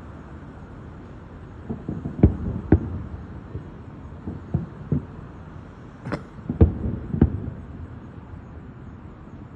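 Fireworks shells bursting as a series of sharp booms, about seven in clusters of two or three, each trailing off briefly, over a steady low background rumble.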